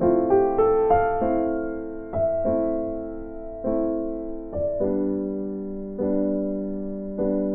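Background piano music: a quick run of notes at the start, then slower single notes and chords, each struck and left to fade.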